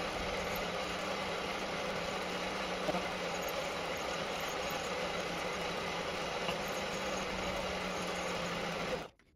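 Centec 2B milling machine running, its end mill cutting a small brass part: a steady, even machine hum that cuts off abruptly about nine seconds in.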